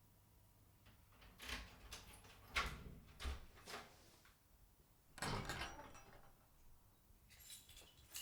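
A series of short knocks and clatters of things being handled, loudest about two and a half seconds in, with a longer scraping rustle about five seconds in and a lighter clatter near the end.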